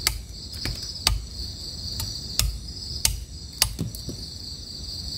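Machete blade chopping and shaving a small piece of wood against a log, about eight sharp knocks at uneven intervals. Under the knocks runs a steady high chirring chorus of night insects.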